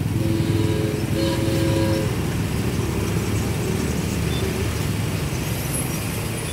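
Odong-odong kiddie ride running: its train of toy-car carriages rumbling and rattling steadily along the rail track. A few notes of the ride's music sound over it in the first two seconds.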